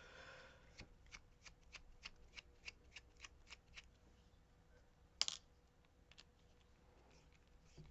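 A quick run of light, even clicks, about three a second, from a lock and the small metal tools worked in it, then one sharper, louder click a little after the middle.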